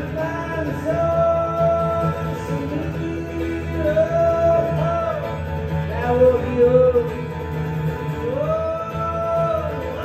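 A male voice singing long held notes over a strummed acoustic guitar in a live solo performance.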